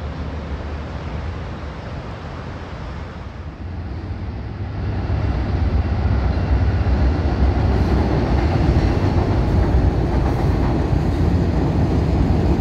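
VIA Rail passenger train passing close by: a steady rumble of wheels on rail that swells about five seconds in and stays loud.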